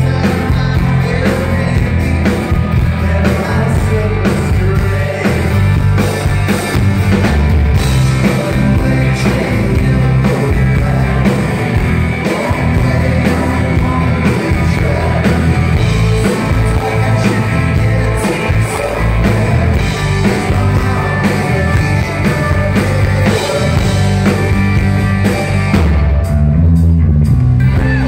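Live rock band playing loudly, with drums, bass, electric and acoustic guitar, and a male lead singer. About two seconds before the end the sound briefly goes dull and bass-heavy.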